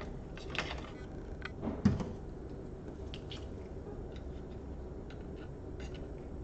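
Scattered small clicks and taps from laptop parts being handled on the bench, with one sharper knock about two seconds in, over a steady low hum.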